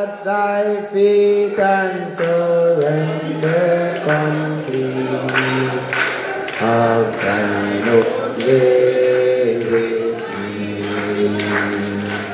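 Congregation singing a hymn with long held notes, led by a man's voice through the church microphone and PA.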